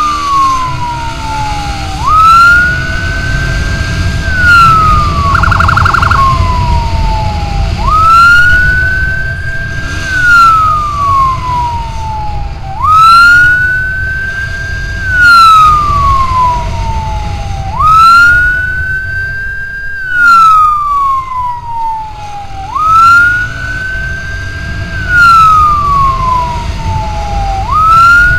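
Electronic emergency siren wailing in a repeating cycle. Each sweep rises quickly, holds high, then slides down over about three seconds, coming round about every five seconds. There is a brief fast warble about five and a half seconds in. Underneath runs the steady low rumble of a motorcycle riding through traffic, with wind.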